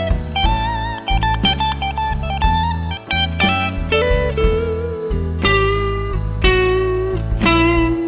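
Electric guitar through a Nux Amp Academy modeling pedal on its Cali Crunch amp model, playing a blues lead over a backing track with drums and bass. The lead has bent notes with wavy vibrato, then longer held notes in the second half.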